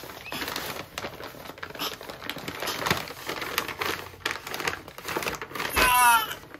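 Gift-wrapping paper crinkling and rustling in irregular crackles as a wrapped present is grabbed and pulled at. Near the end a baby lets out a short high squeal, the loudest sound.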